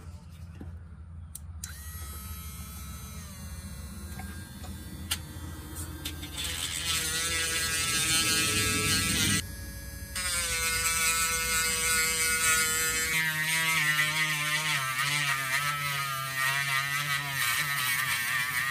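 Small electric sanding tool whining as it sands down a folding knife's cracked plastic handle. It cuts out briefly about halfway, starts again, and its pitch wavers as it bears on the work.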